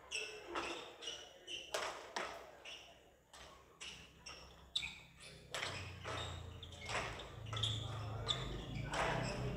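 Racket hits on a shuttlecock in a fast badminton doubles rally: a quick series of sharp strikes, about two a second. A low hum comes in a little past halfway.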